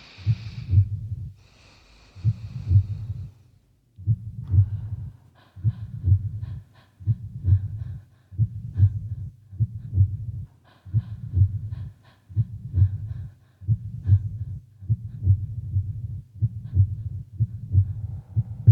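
A heartbeat: deep double beats, lub-dub, repeating about every one and a half seconds and coming a little faster toward the end, with a hiss over the first few beats.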